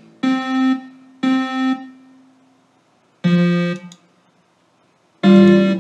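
Yamaha MU50 MIDI sound module playing back a simple score sent from MuseScore on its piano and synth voices. Four short notes or chords sound, with silent stretches between them, as parts are muted and soloed.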